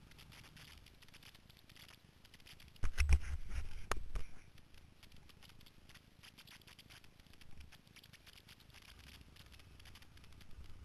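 Rubbing, scratching and knocking on a camera mounted on a moving Yamaha Nytro snowmobile, over a faint low rumble. About three seconds in comes a loud stretch of low thumps and knocks lasting just over a second.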